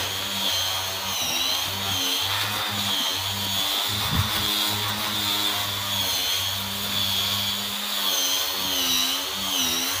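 A small electric motor running steadily, as in a power tool: a low hum with a high whine that wavers slightly up and down.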